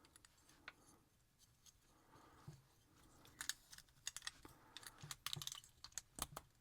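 Faint clicks and taps of small model-kit parts being handled and pressed together, sparse at first and more frequent from about halfway through.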